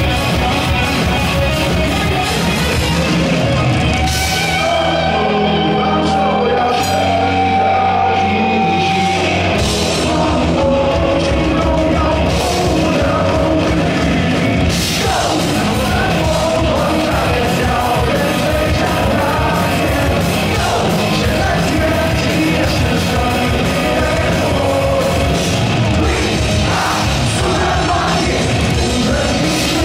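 Live rock band playing loud through amplifiers: distorted electric guitar, bass and drums, with a male singer singing and shouting into a microphone. About four seconds in the low end drops back for a few seconds under a held guitar note, then the full band comes back in.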